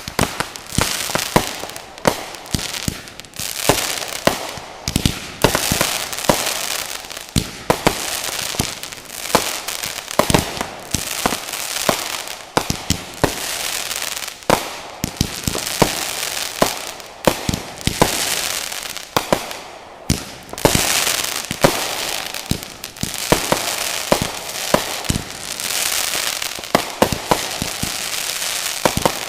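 Fireworks going off: dozens of sharp bangs at irregular, often rapid intervals, with a steady crackling hiss between them.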